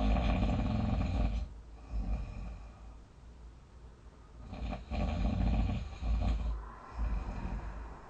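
A sleeping person snoring loudly: two long, rough, rattling snores about four seconds apart, with quieter breaths between.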